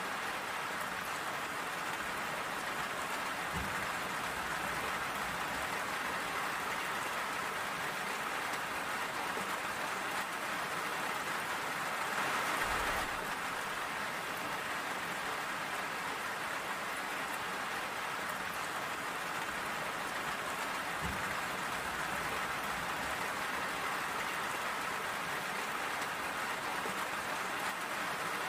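Steady rain falling, an even continuous hiss, swelling briefly about halfway through.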